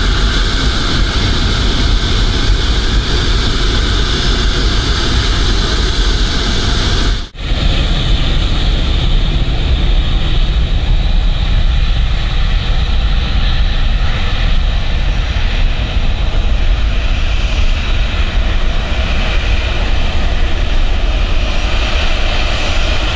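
Four Lotarev D-18T turbofan engines of an Antonov An-124-100 at takeoff power during its takeoff roll: loud, steady jet noise with high whining tones. About seven seconds in the sound cuts out for an instant at an edit, then carries on with less hiss.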